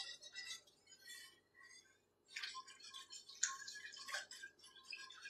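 Metal wire whisk scraping and clinking against a pot as a thickening sauce is whisked, in quick, uneven strokes with a short lull about two seconds in.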